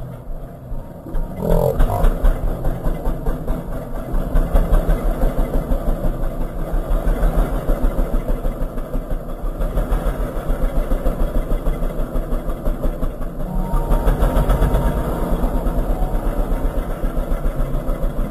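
Royal Enfield Thunderbird 350's single-cylinder engine running at idle through its chrome silencer, with an even, pulsing exhaust beat. It grows louder about two seconds in.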